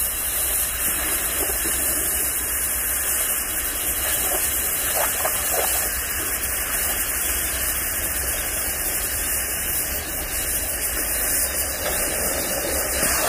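Oxy-fuel cutting torch hissing steadily as it cuts through steel, with a steady low hum underneath.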